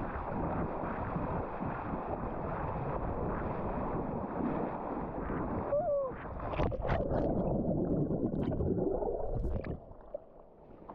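A person running and wading into the sea, with water splashing and churning around his body. The noise falls off sharply about ten seconds in.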